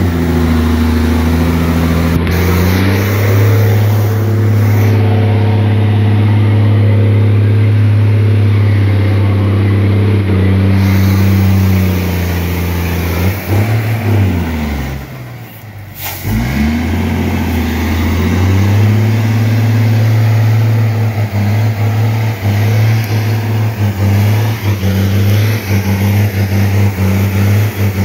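Renault truck's diesel engine running hard under load as the truck pulls through deep mud. About halfway through, the engine note falls away and dips briefly, then rises again and holds steady.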